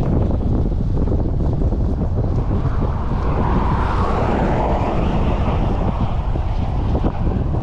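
Wind buffeting the microphone of a camera on a moving bicycle, a steady low rumbling rush. A louder swell of rushing noise rises and fades in the middle.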